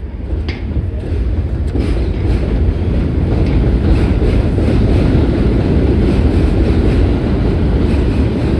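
New York City subway train running on the rails, a low rumble that grows louder over the first couple of seconds and then holds steady, with faint regular clicking of the wheels.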